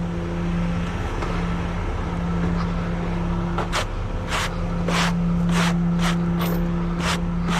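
Broom sweeping debris off a trailer deck: short scraping strokes, about two a second, starting around halfway through. Under them an engine idles steadily.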